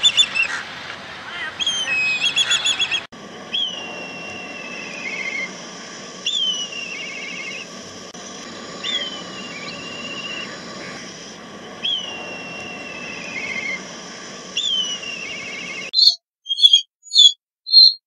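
Black kite calling: a shrill, falling whistle that breaks into a quavering trill, repeated about every three seconds. About sixteen seconds in, this gives way to a run of short high chirps.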